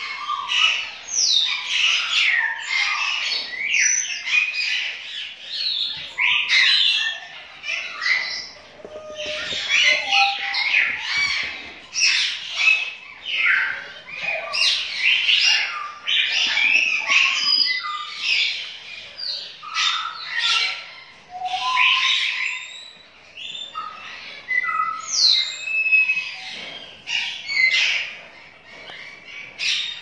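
African grey parrot chicks squawking and calling without pause, many short calls overlapping, some sliding up or down in pitch. The chicks hold their beaks open as they call, the way they beg to be fed.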